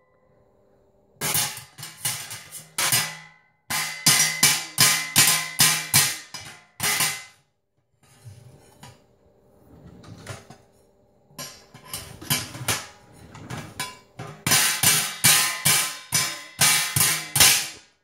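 A spoon banging on the stainless steel lid of a large stockpot, with the lid ringing after each hit. The hits come in uneven runs, up to about three a second, with softer taps in a lull near the middle.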